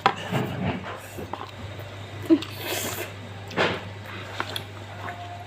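Spaghetti being eaten close to the microphone: chewing and slurping mouth sounds, with scattered light clicks and a breathy slurp about halfway through.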